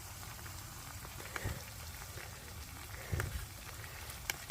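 Chips and sausages frying in oil in a pan, a steady sizzle with scattered small crackles and two soft low thumps.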